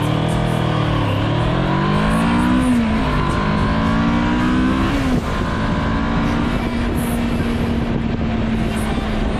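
Kawasaki Versys 650's parallel-twin engine pulling under acceleration: the revs climb, drop at upshifts about three and five seconds in, then hold steady at cruising speed, over wind and road rush.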